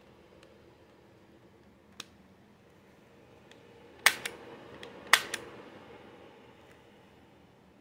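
Gamo P-430 CO2 pistol's trigger pulled twice, each pull giving a sharp double mechanical click, about a second apart. A fainter click about two seconds in comes from the cross-bolt safety being pushed off.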